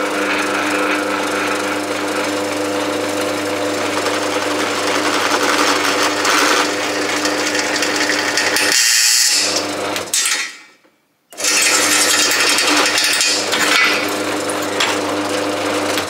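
Bench drill press running with its motor humming steadily while a small bit drills holes in a fridge slide. The sound breaks off completely for about half a second just past ten seconds in, then the drill runs again.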